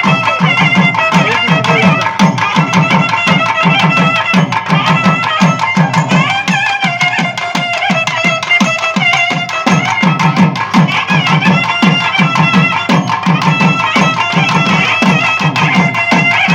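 Naiyandi melam folk band playing: a wavering, reedy nadaswaram melody over fast, steady beats on thavil barrel drums, about three strokes a second.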